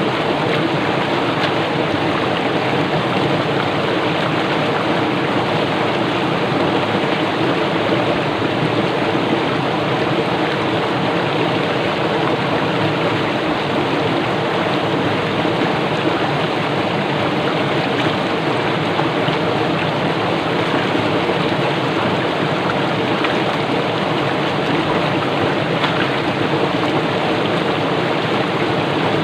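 Swift stream water rushing and churning over rocks in a steady, unbroken rush.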